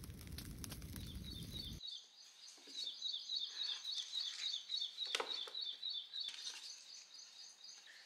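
Wood campfire crackling for about the first two seconds, then a small bird chirping over and over in quick, high notes, with one soft knock about five seconds in.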